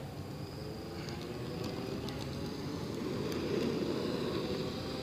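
Low rumbling noise that swells about three seconds in and then eases, over a steady high drone of insects.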